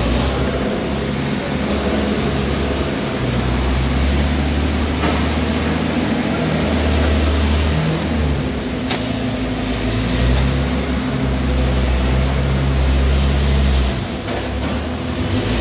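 Diesel engine of a Komatsu PC200 excavator running with a steady low drone that swells and eases in long stretches. A single sharp click comes about nine seconds in.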